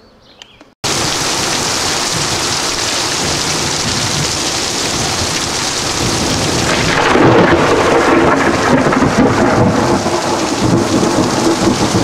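Heavy rain pouring down, cutting in suddenly about a second in. A long rumble of thunder builds about halfway through and carries on under the rain.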